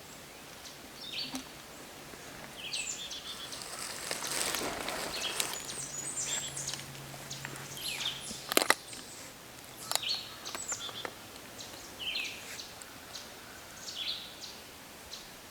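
Songbirds chirping and singing outdoors in spring, short high calls coming every second or so. A rustling swell rises about four seconds in, and a few sharp clicks come a little past the middle.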